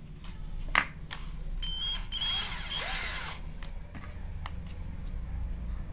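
Tru-Max 12 V cordless drill/driver motor running briefly, for about a second, with a high whine, after a single sharp click a little under a second in.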